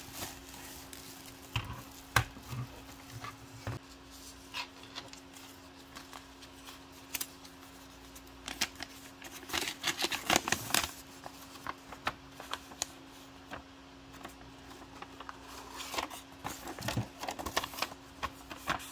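Hands handling a plastic LED clock, then unfolding a paper instruction manual. Light taps and clicks come in the first few seconds. After that comes crisp paper rustling and crinkling, densest about ten seconds in and again near the end.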